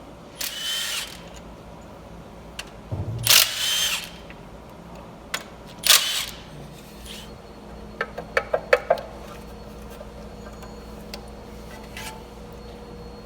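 A power wrench spinning a bolt out in three short bursts, loosening the power steering pump bolt on the timing cover of a 4.6L V8. A quick run of about six sharp metallic clicks follows.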